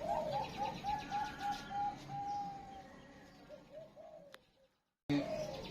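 Zebra dove (perkutut) cooing: a run of short, quick notes about four a second, one longer drawn-out note just past two seconds in, then a few softer notes before it cuts off suddenly about four and a half seconds in.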